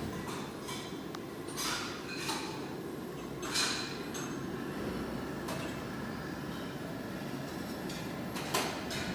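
Several sharp clinks of metal and glass tableware over a steady low background noise in a barbecue restaurant.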